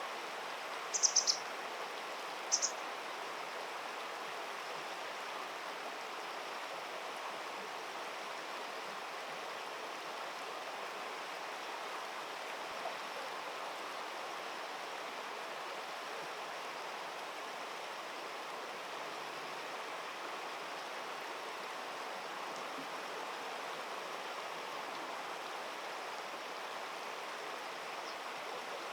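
Steady rush of flowing stream water. Two short, high-pitched bird chirps sound about a second in and again shortly after.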